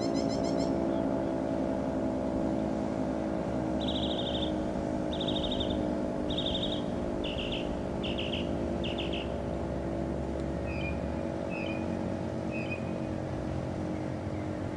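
Federal Signal 3T22A three-tone siren sounding its steady alert chord. A bird calls over it, first with six short trills about a second apart, then a few short chirps.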